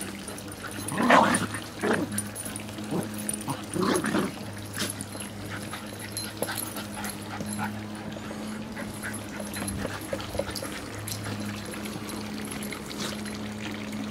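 Dogs barking a few short times while playing, the loudest about a second in and another near four seconds, over a steady low hum.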